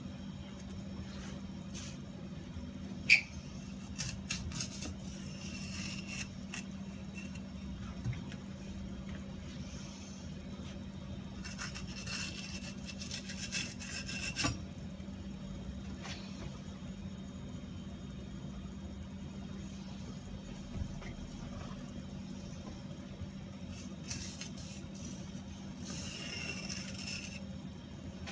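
A knife cutting and scraping through bluefin tuna, in scattered spells of scraping with sharp clicks, the loudest click about three seconds in. A steady low hum runs underneath.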